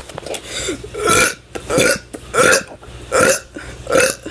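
A teenager burping on purpose: a quick run of five short, loud burps, roughly one every 0.7 seconds.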